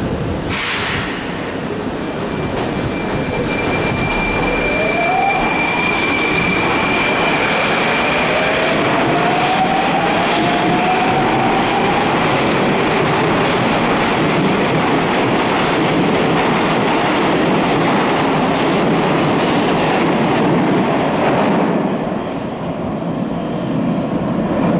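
Metro train pulling out of the station: steady rumble and wheel noise, with a whine rising in pitch as it picks up speed. A short hiss comes just after the start, and a high steady squeal runs from about two seconds in until about nine. The noise drops near the end as the train clears the platform.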